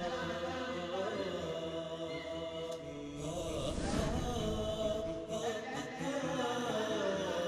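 Voices chanting in unison, a continuous sung vocal chant with held, wavering notes.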